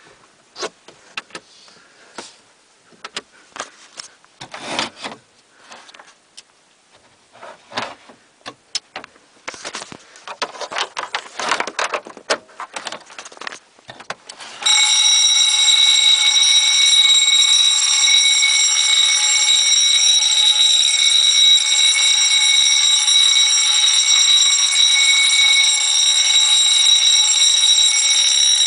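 A run of irregular clicks and knocks, then about halfway in two electric Wheelock fire-alarm bells, a 6-inch and a 10-inch, start abruptly and ring continuously and loudly together.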